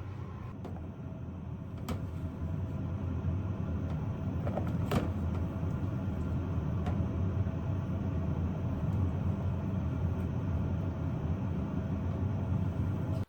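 Steady low rushing of water running from a kitchen tap as dishes are washed, building over the first few seconds, with a few light clicks.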